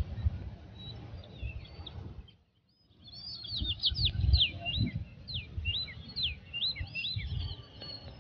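Small birds chirping in quick repeated short whistles, sparse at first and then a dense run of calls after a brief break about three seconds in, over low rumbling on the microphone.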